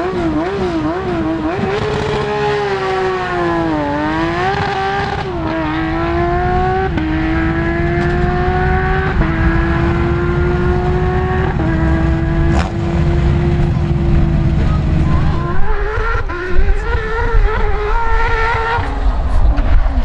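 Porsche 997 GT3 rally car's flat-six revving up and down at the start line, then launching about two seconds in and pulling away through four upshifts, the revs climbing in each gear before each change. Near the end a second rally Porsche comes in louder, with a rougher, heavier rumble.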